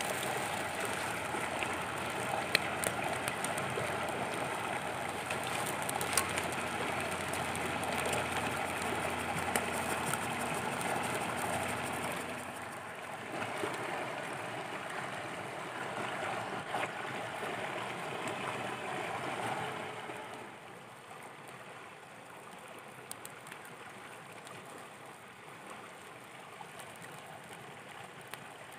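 Small wood fire crackling with scattered sharp pops under a stone used as a griddle, over a steady hiss of egg and vegetables frying on the hot stone. The sound gets clearly quieter for the last third.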